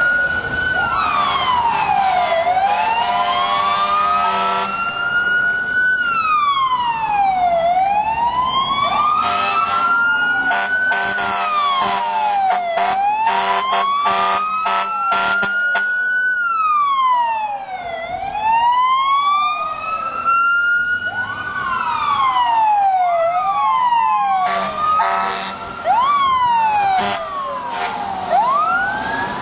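An old fire truck's siren wailing, rising slowly and falling more quickly about every five seconds, with a second wail overlapping near the end. Runs of sharp, rapid strikes come and go over it.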